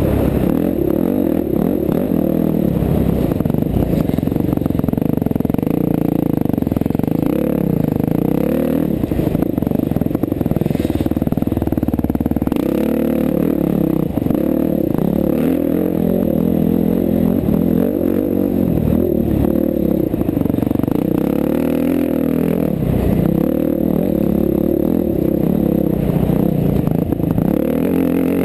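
KTM 350 XC-F single-cylinder four-stroke dirt bike engine at race pace, its pitch rising and falling constantly as the rider opens and closes the throttle along the trail.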